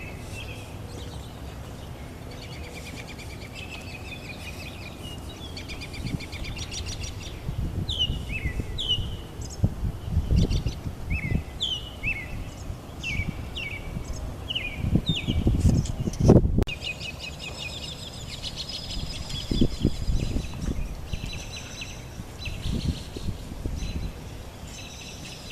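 Several birds chirping and calling, with many short notes that slur downward, repeated throughout. Intermittent low rumbles on the microphone rise and fall underneath and are the loudest part, with a brief break in the sound about two-thirds of the way through.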